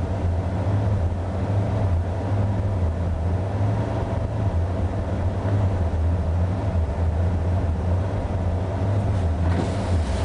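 1986 Ford F-150's fuel-injected 302 V8 idling steadily, heard from inside the cab, still cold after a cold start in the low 20s °F; the owner finds its cold idle rough.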